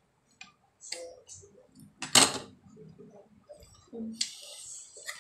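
Spoons and forks clinking and scraping on plates during a meal, with one loud clink about two seconds in.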